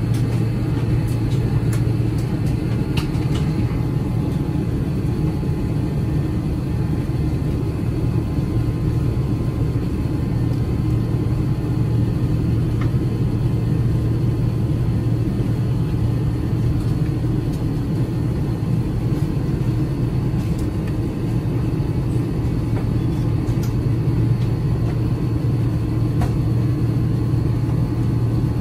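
Steady cabin rumble of an Airbus A350-900 in flight: the Rolls-Royce Trent XWB engines and the airflow over the fuselage make one even, deep drone that holds level throughout.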